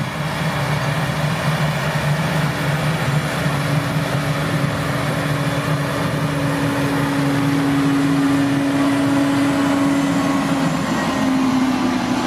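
Fendt 728 Vario tractor's 7.5-litre six-cylinder AGCO Power diesel running steadily under load as the tractor pulls an implement over tilled ground. The engine drone grows louder as it approaches, and its pitch drops slightly near the end as it passes close by.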